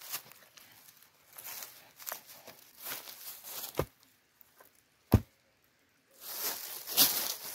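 Dry leaf litter crackling and soil scraping as a small hole is dug with a hand tool, then two dull thumps about four and five seconds in and more crunching of leaves as boots tread the soil firm around a newly planted sapling.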